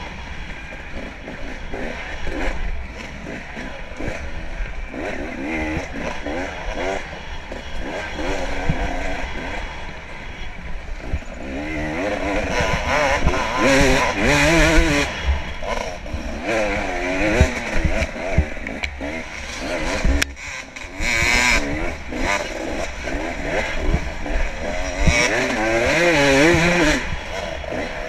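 Off-road dirt bike engine at race pace, revving up and down again and again, heard from the rider's camera with wind rumbling on the microphone and frequent knocks from the rough trail.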